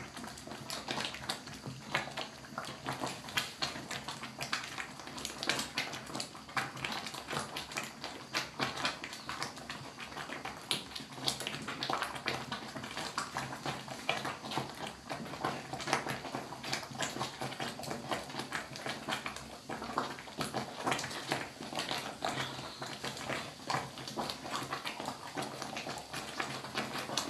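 Wooden cooking stick knocking and scraping against the cooking pot as stiff ugali of sorghum and maize flour is stirred and pressed: a dense run of irregular knocks and scrapes.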